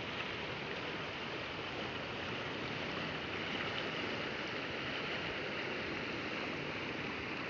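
Steady rushing of a swollen, muddy river in flood.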